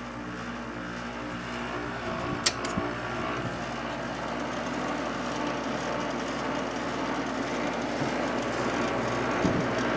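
6000 BTU Slumberline window air conditioner running: a steady low hum with the rush of its fan growing gradually louder, and a single sharp click about two and a half seconds in.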